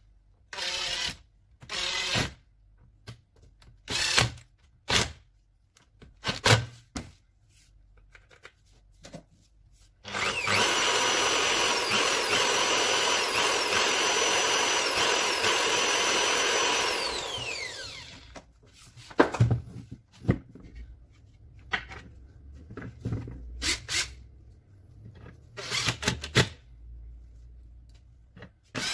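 Makita 9237C polisher's electric motor test-run after reassembly: it starts about ten seconds in, runs steadily with a high whine for about seven seconds, then is switched off and winds down, its pitch falling. Short knocks and clatter of handling the tool come before and after the run.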